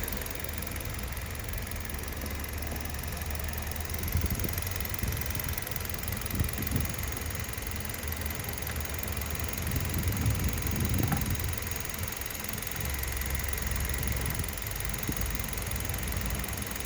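Hyundai Solaris 1.4 four-cylinder petrol engine running at idle, with a few irregular louder swells. At about 160,000 km it has an extraneous noise that the owner is drawing attention to.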